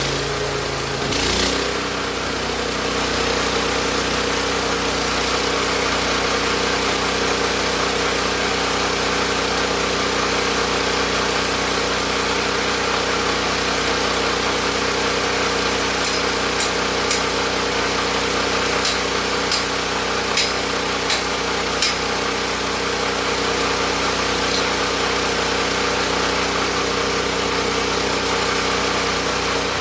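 Small gas engine of a homemade sawmill running steadily, with a brief change in its note about a second in and a run of sharp clicks about halfway through.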